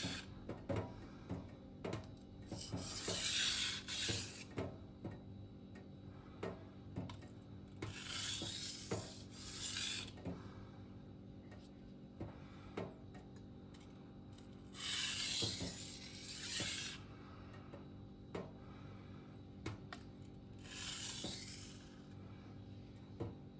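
Fiskars chef knife drawn edge-first across a diamond whetstone in four slow, light strokes a few seconds apart, each a drawn-out scrape, with small clicks between them: edge-leading passes to remove the burr.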